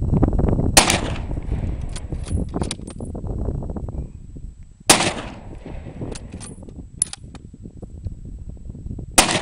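1903 Springfield bolt-action rifle in .30-06 fired three times, about four seconds apart, each shot a sharp crack with a short echoing tail. Lighter clicks come between the shots.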